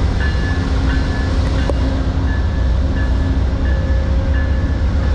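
GE P42DC diesel-electric locomotive running with a deep, steady rumble as an Amtrak passenger train pulls away from the station, with a few faint steady tones coming and going above it.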